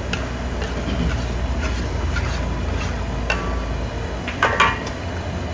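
Metal ladle stirring thick sauce in a large metal wok, scraping and clinking against the pan a few times, with the loudest clinks near the end. A steady low rumble runs underneath.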